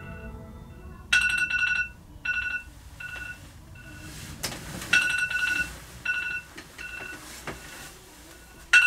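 Phone alarm beeping in short repeated bursts of a two-pitch electronic tone, with a rustle of bedding about halfway through.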